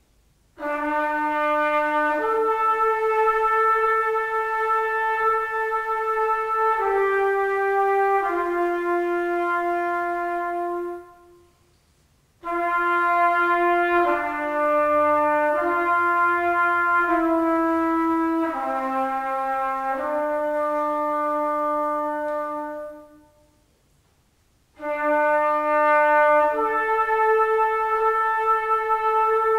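Solo trumpet playing a slow melody of long held notes, in three phrases with two short pauses between them.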